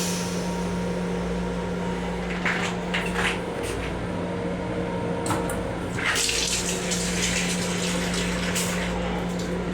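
Water running in the restroom of a Long Island Rail Road M7 railcar, coming in uneven hissing spurts over the car's steady low hum.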